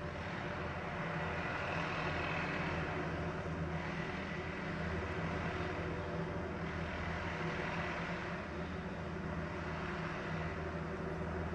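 Engine of tree-trimming machinery running steadily, with a higher rushing noise that swells and fades three times.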